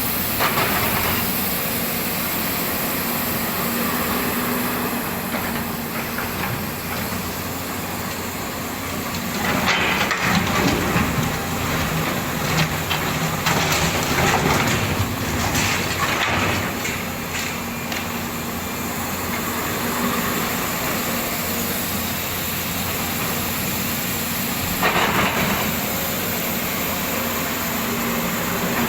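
Volvo excavator's diesel engine running steadily. Several spells of louder rough clatter and hiss come and go over it, a few seconds each, as the machine works.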